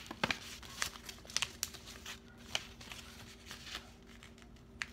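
Sheet of paper being folded and creased by hand: scattered light crinkles and taps.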